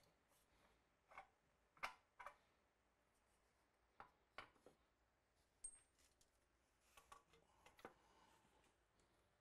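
Faint, irregular clicks and light knocks of video wall panels and rigging hardware being handled and fitted together, about a dozen in all.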